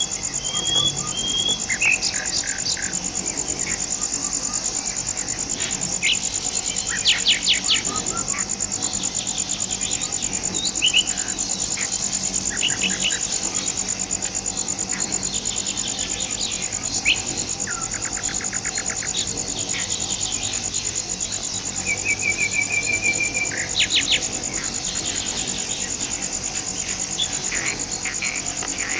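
Forest ambience: a steady, high-pitched insect drone with scattered bird calls and chirps over it, including a quick repeated trill about three quarters of the way through.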